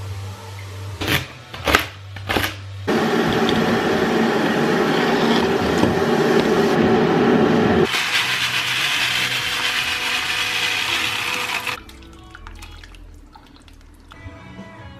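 A few knocks of kitchenware, then a loud steady rush of water. About eight seconds in, the sound turns to a lighter, higher rush as dried red split lentils are poured from their plastic bag into a steel pot of stock and vegetables; it stops a few seconds before the end.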